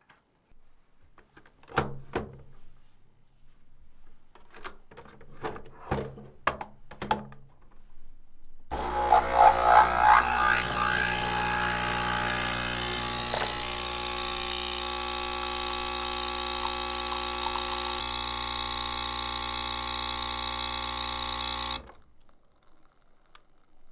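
Capsule coffee machine's pump running as it brews into a mug: a rough start that settles into a steady mechanical hum, which stops abruptly after about thirteen seconds. A few short clicks and knocks come before it.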